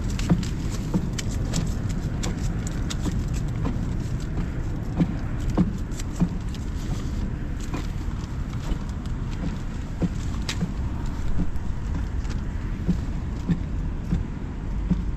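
Wind buffeting the fabric of a pop-up ice-fishing tent and rumbling on the microphone, a steady low rumble, with scattered light clicks and taps.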